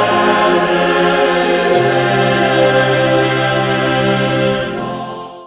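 Background choral music: voices holding long chords, the lowest note shifting to a new pitch about two seconds in, then fading out near the end.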